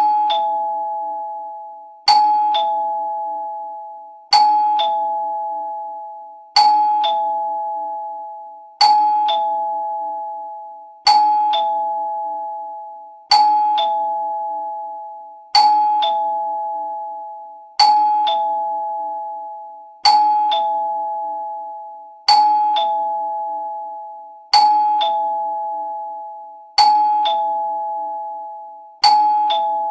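Two-note doorbell chime ringing "ding-dong" over and over: a higher note, then a lower note a moment later, each fading away. The pair repeats evenly about every two and a quarter seconds.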